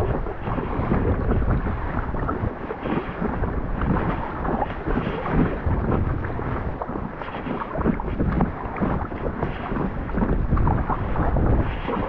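Strong wind rumbling and buffeting on the microphone, over water splashing and lapping around an Intex Challenger K1 inflatable kayak paddled into the wind.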